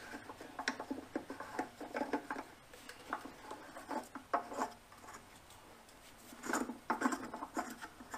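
Irregular clicking, rattling and scraping of a large MIG wire spool being fitted onto the spool spindle of a Hobart Handler 140 wire-feed welder, with a busier run of rattles about six and a half seconds in.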